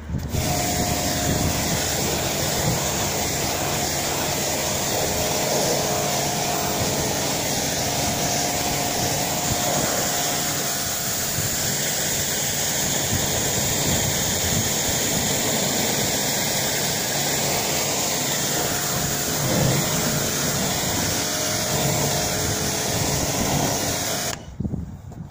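Steady hiss of a strong water jet spraying onto a car's paintwork and glass, cutting off suddenly near the end.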